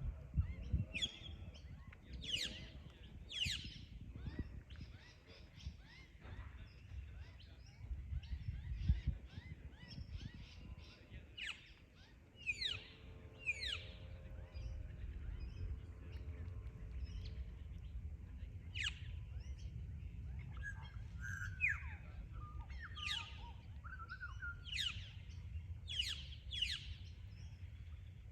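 Australian birds calling: many short, high chirps that sweep sharply downward, coming in clusters, over a steady low rumble.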